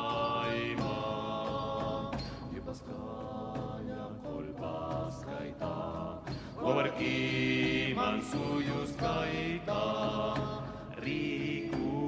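Music: several voices singing a chant-like melody in long held notes.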